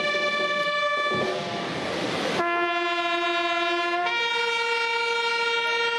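A bugle call played slowly in long held notes. It drops to a low note about two and a half seconds in and steps up to a higher one about four seconds in. Just over a second in, a rush of noise covers it for about a second.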